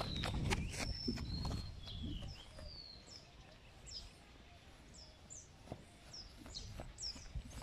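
Small birds chirping: short high notes, many sliding down in pitch, repeated through the whole stretch. A low rumble underneath fades after about two seconds, leaving the chirps clearer.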